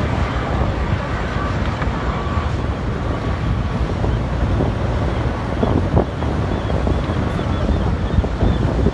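Strong wind buffeting the microphone, with sea waves surging and breaking against a rock breakwater; a few sharper surges of water or gusts come in the second half.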